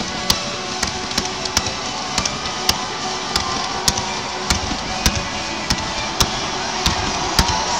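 Music with a steady beat of sharp hits, a little under two a second, accompanying a stadium fireworks display. Under it runs the hiss of ground-launched fireworks fountains.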